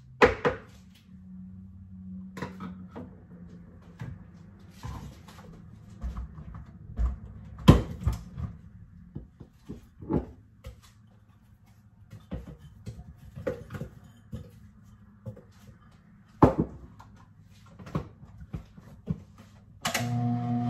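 Scattered knocks and clatter of a plastic blender jar being set on its base and strawberries being dropped into it. Near the end the blender motor switches on and starts running.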